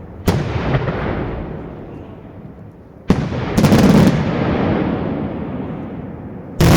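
Daytime fireworks shells bursting in loud bangs: one just after the start, a loud one about three seconds in followed at once by a quick volley of crackling reports, and another big bang near the end, each trailing off in a long rumbling echo.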